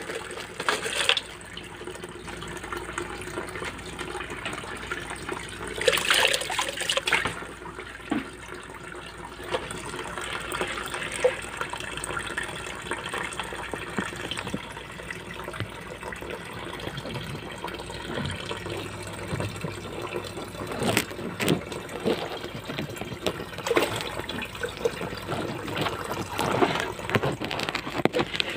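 Water running and splashing in a plastic tub of muddy water: a steady watery noise, with louder splashes about six seconds in and a few more after twenty seconds.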